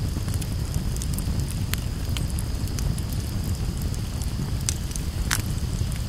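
Campfire crackling: irregular sharp pops and snaps over a steady low rumble, the loudest pop a little after five seconds in.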